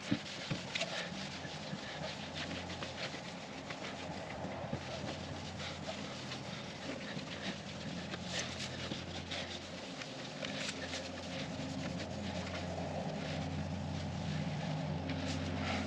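Cloth rag wiping and rubbing over the painted steel body panels of a 1977 Ford F250, a soft, uneven scuffing while patina preserver is spread on. A steady low hum runs underneath.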